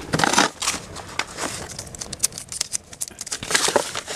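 Irregular crinkling and rustling broken by sharp clicks, as litter and cardboard are picked up off a gravel path. Louder handling comes right at the start and again about three and a half seconds in.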